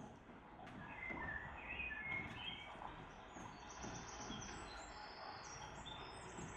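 Birds chirping: a run of short, high chirps over a faint background hiss, starting about a second in and going higher-pitched from about halfway.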